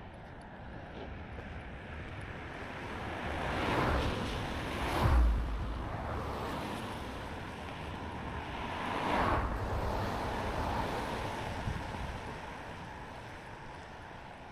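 Two vehicles driving past on a wet road, tyre hiss swelling and fading: the first passes about four to five seconds in, the second about nine seconds in.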